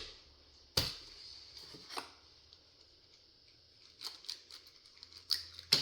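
A raw hen's egg being cracked open by hand: one sharp knock of the shell against a hard edge a little under a second in, then faint crackling clicks of the shell being handled and pulled apart near the end.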